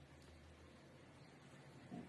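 Near silence: faint room tone with a low hum, and one brief soft thump near the end.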